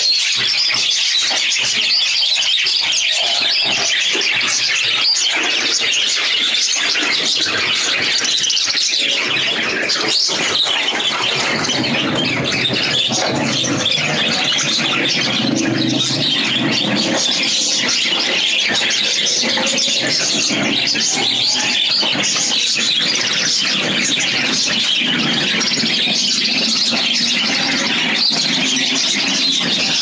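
Many caged budgerigars and cockatiels chattering and screeching together in a continuous, shrill din.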